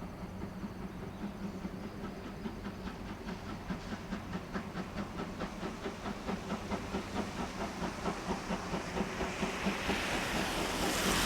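C11 steam tank locomotive working up the line, its exhaust beating in an even rhythm of chuffs that grow steadily louder as it approaches, with a loud rush of steam hiss near the end.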